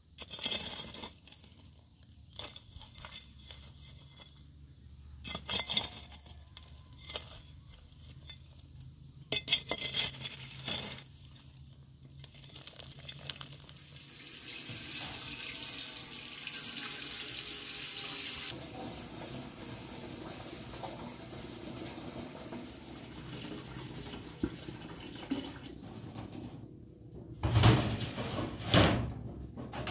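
A long metal spoon scraping and scooping hot ash and charcoal in a hearth, in a few separate strokes. From about halfway on, water runs from a tap into a sink, and metal pots knock together near the end.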